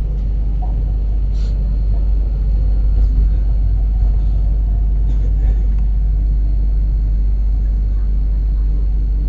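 Steady low rumble of a CRRC Qingdao Sifang-built MTR Q-Train metro car running along the Kwun Tong line, heard from inside the passenger car, with a faint steady high whine above it.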